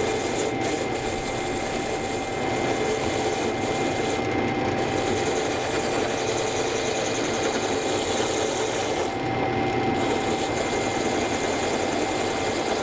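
Motor-driven wire wheel running steadily while a steel brake caliper slide pin is held against it, the pin being wire-brushed clean of old grease and corrosion after being freed from seizing. The scratching hiss drops out briefly twice, about four and nine seconds in, as the pin is lifted off the wheel.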